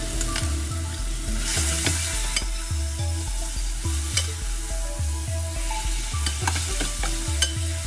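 Spiced chicken wings and freshly added yogurt sizzling in a hot stainless steel pan while a metal spatula stirs and scrapes, with scattered sharp clicks of the spatula against the pan. A steady, evenly repeating bass line of background music runs underneath.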